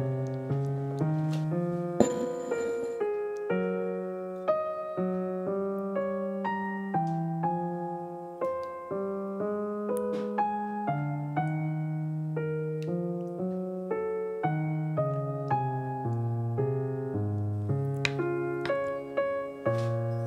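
Background piano music, a melody of single notes moving at an even pace. About two seconds in comes one sharp hit with a brief ringing tail, the loudest moment.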